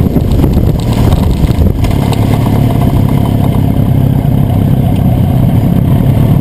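Motorcycle engines running steadily as a group of sport bikes rides together, with the camera bike's own engine loudest and close, heard from a mount on its fuel tank.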